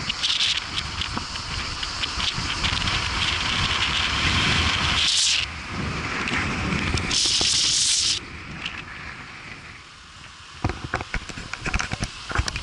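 Wind and road noise on a camera microphone mounted outside a moving car, with crackling buffets on the microphone. Stretches of high buzzing stop sharply about eight seconds in, and the sound then drops quieter.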